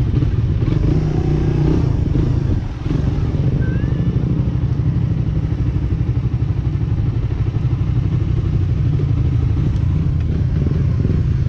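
Motorcycle engine running while riding, a steady low drone that briefly dips about three seconds in.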